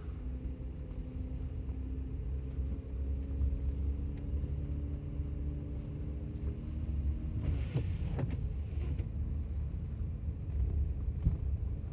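Steady low rumble of a motor vehicle, with a humming engine note that rises slowly in pitch. Two short knocks come about eight seconds in.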